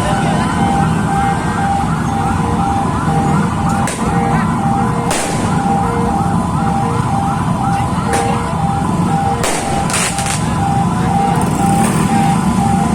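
Several ambulance sirens sound together: one a fast repeating rising wail, another a steady on-off beeping tone. Firework bangs go off about six times through it.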